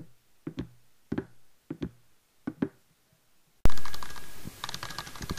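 Walking footsteps, paired knocks about every half second. About 3.7 s in a loud hit cuts in, followed by a busy clatter of rapid clicks over a hiss with a faint steady tone.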